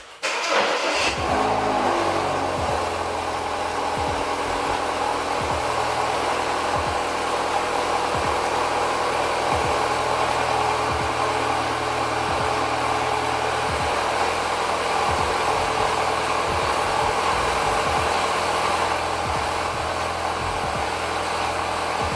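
BMW F30 3 Series engine starting about half a second in, with a short rev flare that falls away over a second or two, then idling steadily.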